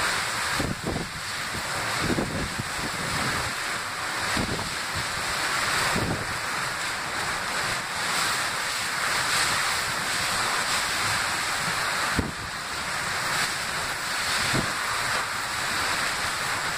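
Hurricane-force wind and torrential rain making a loud, steady rushing noise, with gusts buffeting the microphone in irregular low thumps every few seconds.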